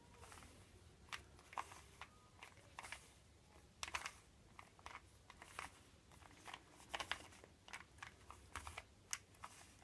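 Plastic Rubik's Cube layers being twisted by hand: a run of faint, irregular clicks and clacks as the faces turn.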